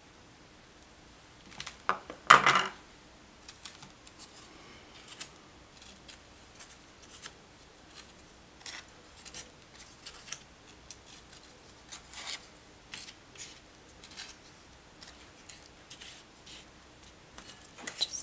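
Metal tweezers clatter once about two seconds in, as if set down on a hard table, followed by sparse soft ticks and rustles of crepe paper petal pieces being handled and laid down one by one.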